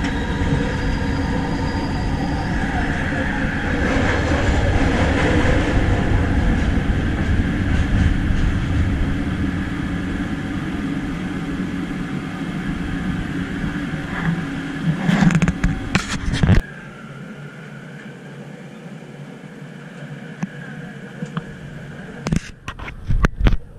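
Driverless metro train running, a steady rumble with a steady motor hum and whine, heard from inside the carriage. About two-thirds of the way through the rumble cuts off suddenly and a quieter steady cabin sound follows, broken by a few sharp knocks near the end.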